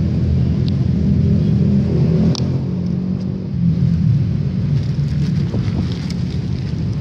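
A loud, steady low rumble throughout, with a few light clicks and scrapes as hands dig in wet soil, most of them in the second half.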